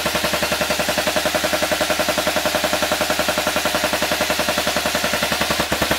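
Airsoft Browning .50 cal electric replica with an M14 gearbox inside, firing full auto: its gearbox cycles in a fast, even mechanical rattle on a 7.4-volt battery, dry-fired without BBs.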